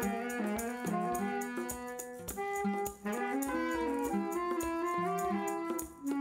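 Small band playing: maracas shaken steadily in rhythm, with a nylon-string classical guitar and a saxophone carrying a melody.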